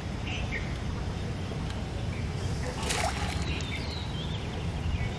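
A brief splash about three seconds in as the fishing rod is jerked up and the line and bait are pulled from the pond water, over steady outdoor background noise with a few bird chirps.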